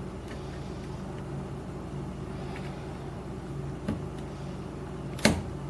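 Steady low background hum, with faint clicks of a lock pick working the pin stack of a Weiser IC core and a sharper click about five seconds in as a pin sets, one that feels like it may be an overset.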